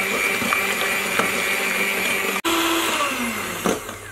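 Tiffany electric hand mixer running at a steady high whine as its beaters whip eggs and sugar in a glass bowl, beating them to a cream. A little over halfway the whine breaks off abruptly; the motor then runs at a lower pitch and winds down with a falling tone near the end as it is switched off.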